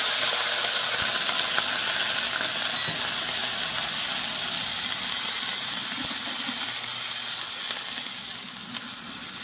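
Honey whiskey sizzling and steaming in a hot stainless-steel frying pan around seared cobia fillets as the pan is deglazed. The hiss is strong at first and gradually dies down as the liquid boils off.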